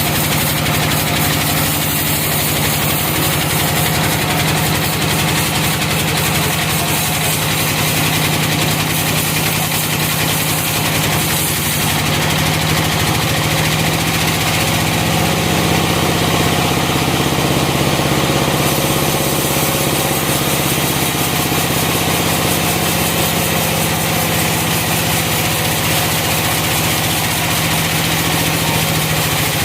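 Sawmill engine running steadily at an even speed, a constant loud hum.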